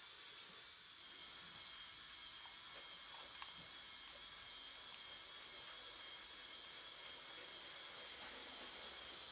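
Faint steady hiss with a thin, steady high tone and a few soft ticks.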